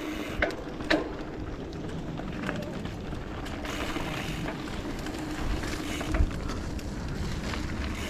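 Mountain bike rolling along a dirt trail: steady tyre noise and low wind rumble on the microphone, with a couple of sharp knocks about half a second and a second in.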